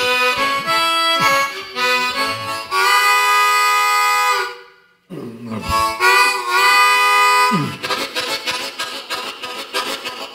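Solo blues harmonica imitating a steam train: long held chords like a train whistle, with notes bent down in pitch and a brief break about five seconds in, then a fast rhythmic chugging from about eight seconds.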